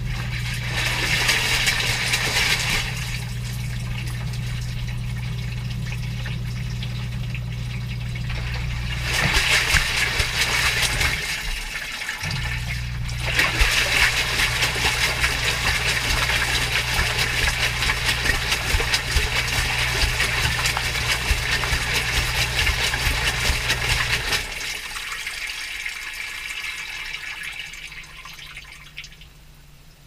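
Direct-drive front-loading washing machine heard from inside its drum: the motor's steady hum under water and wet laundry sloshing as the drum turns. The hum cuts out briefly about 11 seconds in, then stops for good about 24 seconds in, and the sloshing dies away as the drum comes to rest.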